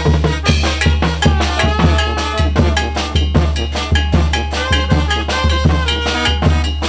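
Band playing an instrumental passage: a drum kit keeping a steady beat over a bass line, with melody notes on top.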